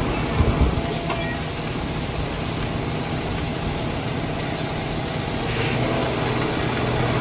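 A dump truck's diesel engine runs steadily while the raised bed unloads crushed stone, which slides and pours out of the tailgate as a continuous gritty rush. A few low thumps come about half a second in.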